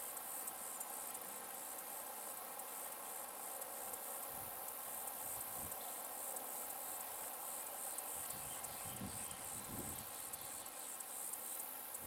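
Steady high-pitched insect chorus, pulsing rapidly without a break, with a few faint low rumbles in the middle and later part.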